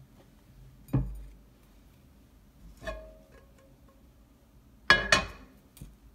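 A Tefal nonstick frying pan knocking on the gas hob's metal pan support as it is lifted, tilted to spread the oil and set back down: a dull knock about a second in, a ringing clank near three seconds, and two loud sharp clanks about five seconds in.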